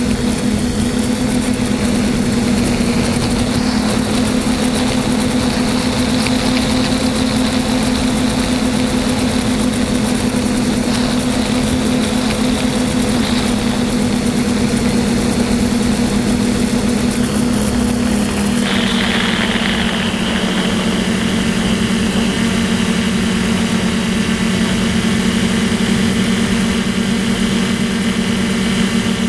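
DJI F450 quadcopter's electric motors and propellers whirring steadily in flight, heard from a camera on the frame. About two-thirds of the way through the pitch drops a little as the motors throttle back and the craft begins to descend.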